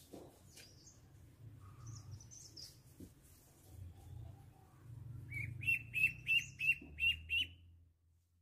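Duckling peeping: a run of about seven short, high peeps, roughly three a second, starting about five seconds in, after a few fainter chirps.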